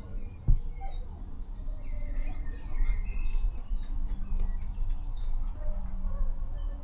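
Several songbirds singing and chirping, with quick repeated trills and twitters, over a steady low rumble on the microphone. A single sharp knock sounds about half a second in.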